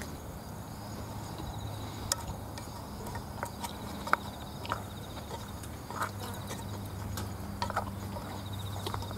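Chopsticks clicking and scraping against an opened tin can of rice, with eating sounds, as short scattered clicks. Insects trill on and off in the background over a low steady hum.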